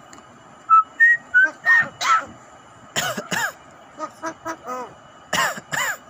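Javan myna whistling four short clear notes, then giving harsh rasping calls in two pairs about two seconds apart, with faint short ticks between them.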